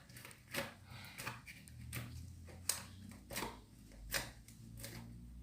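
Sticky homemade glue slime being stirred and scraped out of its container: a string of short, irregular clicks and scrapes, the sharpest about two and a half seconds in.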